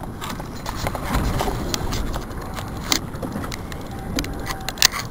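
Steady low rumble of wind and water on an open boat, with scattered clicks and knocks from handling a fishing rod and baitcasting reel while it is cranked. A few of the clicks near the end are sharper.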